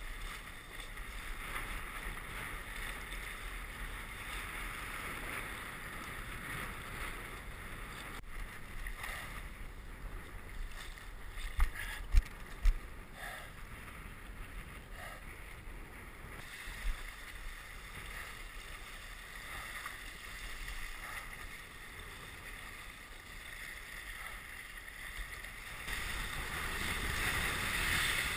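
Water and wind rushing past a windsurfing board and sail, a steady hiss. It is broken by three sharp knocks about twelve seconds in and a fainter one a few seconds later. It grows louder over the last couple of seconds as the board planes with spray flying.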